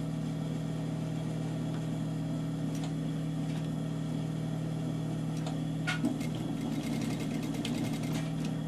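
Sewing machine's motor humming steadily. About six seconds in, a short run of stitching starts with a click: a fast, even rattle lasting about two seconds as a seam is sewn to fasten the belt piece.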